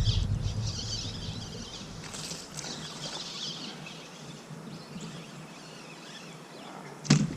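Quiet outdoor ambience with a faint hiss that fades over the first few seconds, and one sharp knock about seven seconds in.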